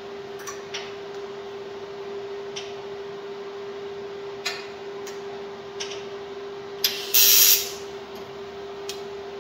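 TIG welding machine humming steadily, with a few light clicks and one loud burst of noise lasting about half a second some seven seconds in, as the torch is brought to the work to strike the arc.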